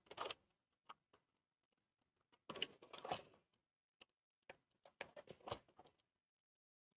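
Near silence with faint handling noises from a 1/12 scale RC jeep model being moved about: scattered light taps and short rustles, a small cluster a few seconds in and several more near the end.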